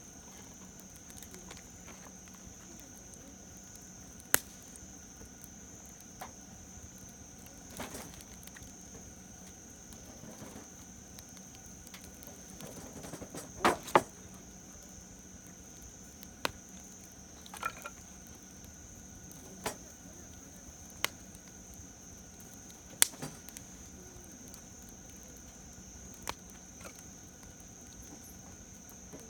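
Campfire wood burning quietly, with scattered sharp pops and crackles about every few seconds over a steady high-pitched background tone.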